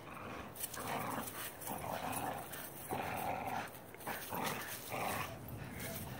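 Dogs, a pit bull and a Newfoundland, growling in play while tugging on a rope toy: a string of short growls at uneven intervals.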